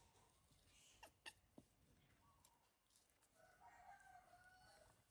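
A rooster crowing faintly, one long call starting past the middle and ending near the end, with a few faint clicks earlier on.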